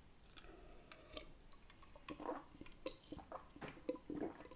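A person drinking from a cup at close range: faint sips and swallows, more of them in the second half.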